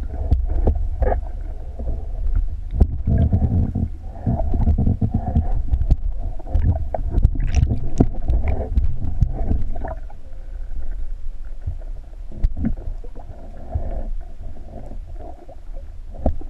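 Muffled underwater rumble and sloshing, as heard through a camera in a waterproof housing, with scattered clicks and knocks.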